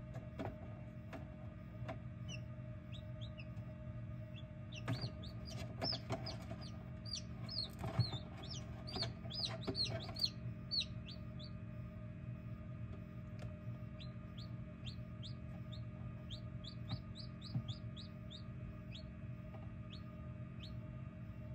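Newly hatched chicks peeping: short, high, falling peeps, in a quick flurry with a few light taps from about five to eleven seconds in, then a steady run of peeps toward the end. A steady low hum runs underneath.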